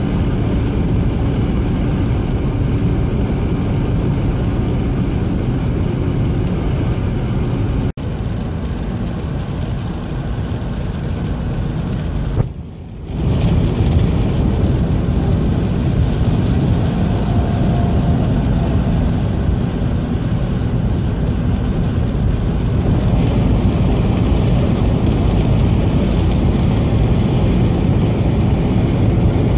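Steady in-cabin road noise of a car at motorway speed on wet asphalt: tyre hiss and engine hum. There is an abrupt drop about eight seconds in and a brief dip near halfway.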